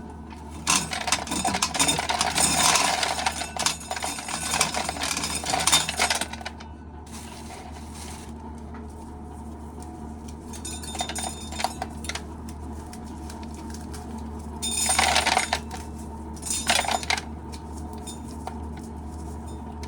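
Dried corn kernels clattering and clinking into a bucket as ears are shelled. A dense run of about six seconds comes first, then a few shorter bursts later on, over a steady low hum.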